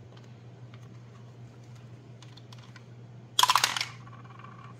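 Quiet handling of paper bills and binder pages with faint ticks, then a brief rattling clatter of rapid clicks about three and a half seconds in.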